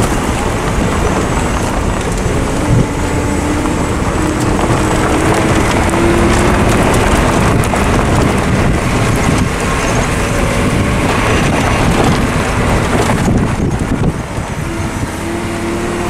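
A motor vehicle's engine running as it drives over rough, grassy ground, its engine note rising and falling a little, with wind buffeting the microphone.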